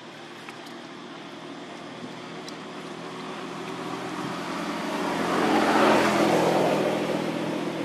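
A motor vehicle passing by: its engine hum and road noise swell gradually to a peak about six seconds in, then fade.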